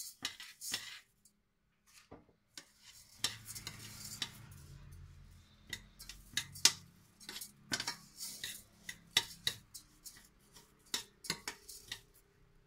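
Metal spoon scraping and clinking irregularly against a stainless steel saucepan as rice is stirred and sautéed in melted butter.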